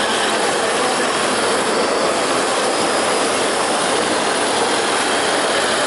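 Kingtex direct-drive 4-needle, 6-thread flat-seamer sewing machine running steadily while fabric is fed through, heard as a loud, constant noise with no clear rhythm.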